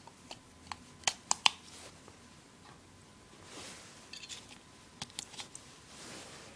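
Batteries being put back into a 2012 Furby's battery compartment: a scatter of sharp little plastic clicks and taps, a cluster in the first second and a half and a few more about five seconds in, with soft handling noise between.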